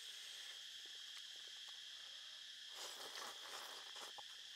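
A person slurps noodles once, a noisy suck lasting about a second, about three seconds in. Under it runs a steady, high-pitched insect buzz, with a few light clicks.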